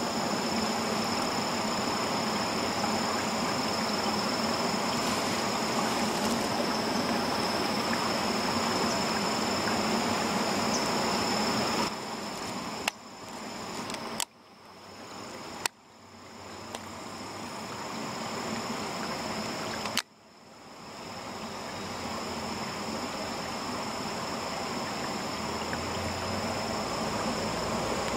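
Outdoor waterside ambience: a steady rushing noise with a thin, high, steady insect drone over it. A few sharp clicks come between about 13 and 20 seconds in, and after each one the background dips and slowly comes back.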